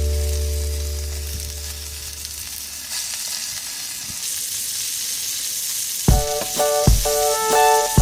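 Food sizzling over a wood fire in a small fire pit, a steady hiss. Background music fades out in the first second or two, and music with a run of separate, sharply struck notes starts about six seconds in.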